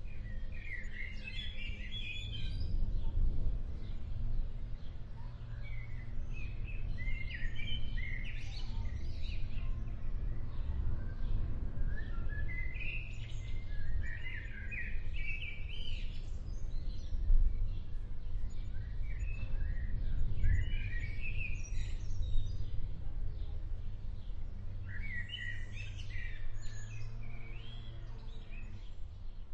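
Wild birds chirping and calling in short flurries every few seconds over a steady low rumble, an outdoor ambience recorded ahead of an approaching thunderstorm.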